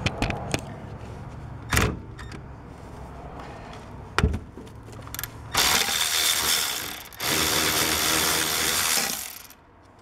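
Metal clanks of a socket and extension being fitted to a brake caliper mounting bolt, then a power tool runs in two steady bursts of about one and a half and two seconds, spinning out the 14 mm caliper bolt.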